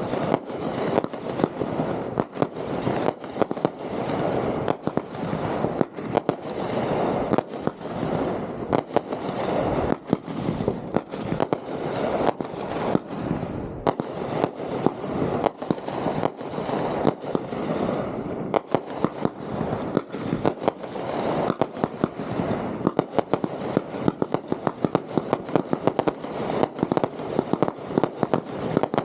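Fireworks going off in rapid succession: a dense string of sharp reports and bangs with continuous crackling between them, with no real pause.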